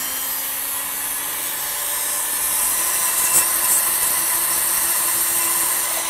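Handheld rotary tool with a small cutter running steadily, its motor whining as it grinds wood out of a rifle stock's tang, relieving the area so bedding compound has room to fill.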